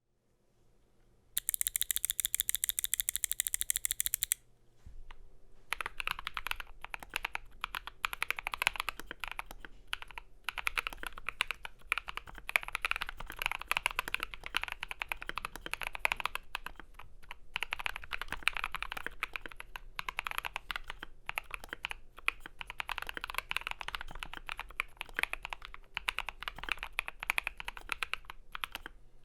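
FL.eSports MK870 mechanical keyboard with a polycarbonate plate, lubed Gazzew Boba U4T tactile switches and AKKO ASA keycaps, being typed on in bursts with short pauses. This follows a very fast, evenly spaced run of clicks lasting about three seconds near the start.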